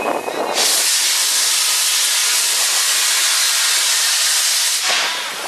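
A train's compressed air venting with a loud, steady hiss that starts abruptly about half a second in and cuts off about four seconds later.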